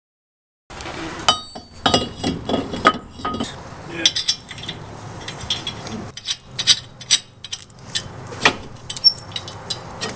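Metal clinks and clatter from a brake rotor being fitted onto the wheel hub and a lug nut being handled and threaded onto a wheel stud, starting just under a second in, with a brief metallic ring soon after.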